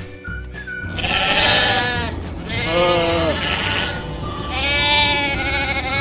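Sheep bleating three times, each call a wavering cry, over background music.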